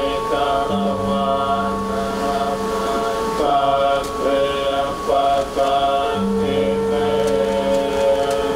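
Buddhist monks chanting a Pali blessing in unison, in long held notes that shift in pitch every second or so.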